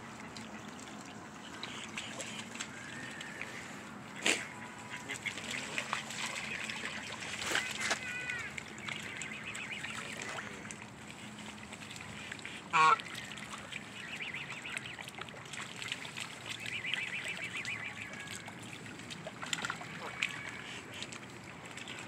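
Canada geese calling at the water's edge: scattered short honks and softer chatter, the loudest honk about thirteen seconds in, with a sharp click about four seconds in.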